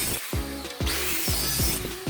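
Background music with a steady, punchy beat, and a stretch of loud hissing noise about a second in.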